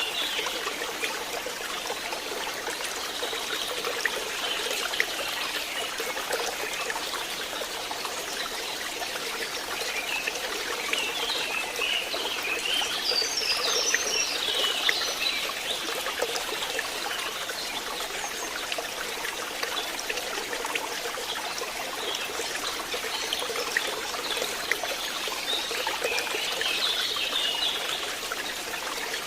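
A forest stream trickling and splashing steadily. Birds chirp in short runs of high calls around the middle and again near the end.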